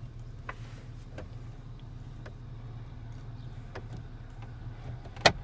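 Ford F-150 pickup heard from inside the cab while driving: a steady low engine and road hum, with a few faint clicks and one sharp, loud, very short knock near the end.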